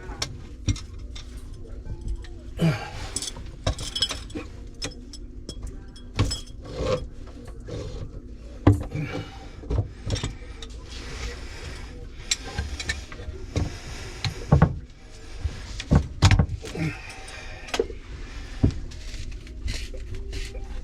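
Irregular metallic clicks, knocks and scrapes of tools and drain parts being handled during work on a vessel sink's push-button pop-up drain, over a low steady hum.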